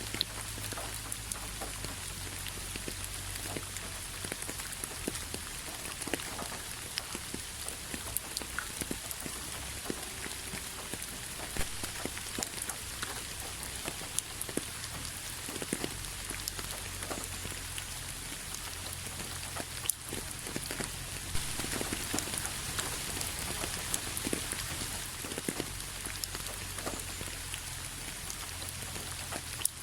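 Steady rain falling on a surface: an even hiss with many individual drops ticking sharply and irregularly, over a low rumble.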